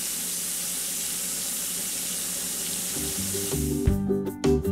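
Sirloin steak sizzling as it sears on a smoking-hot pan, a steady hiss. Music comes in about three seconds in, and plucked notes take over near the end as the sizzle fades.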